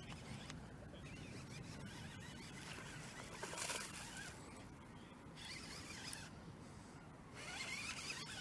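Hooked bass splashing at the water's surface in several short bursts, starting about three seconds in.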